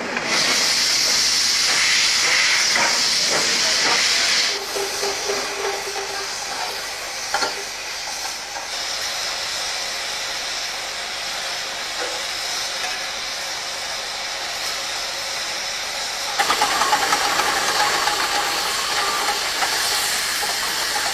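Steam locomotive blowing steam out around its cylinders, a steady loud hiss that drops to a quieter hiss after about four seconds and swells again near the end.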